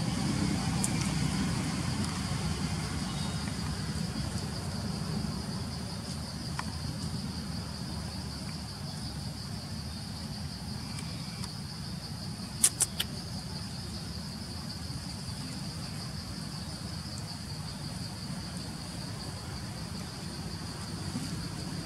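Insects trilling steadily at a high pitch over a low rumble that fades during the first several seconds. Three quick sharp clicks just past halfway are the loudest sounds.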